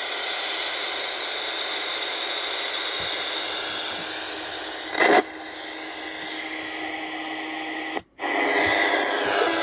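Unitra RE-125 radio alarm clock's speaker hissing with static between stations, with a short loud crackle about five seconds in. Near the end the sound cuts out for a moment as a slide switch on the set is moved, then a station comes through louder.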